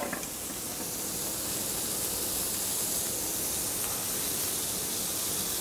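Steady, even sizzling hiss from a chicken breast grilling over the charcoal in an open Big Green Egg ceramic grill.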